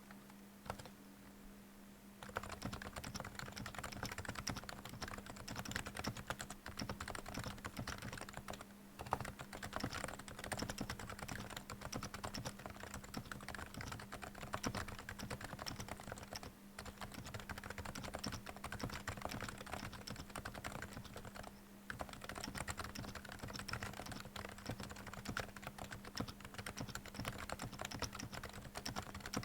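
Fast continuous typing on a Realforce R2 PFU silent-version keyboard with silenced Topre electrostatic capacitive switches. The keystrokes start about two seconds in and run on with a few brief pauses, over a steady low hum of background noise.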